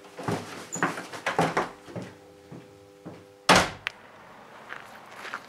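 Wooden door handled with a few knocks and rattles as someone goes through it, then slammed shut hard about three and a half seconds in, the loudest sound here.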